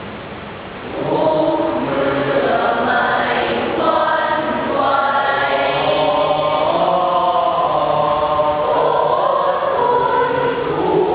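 A student choir singing in parts, holding sustained chords that shift from note to note. The choir swells louder about a second in.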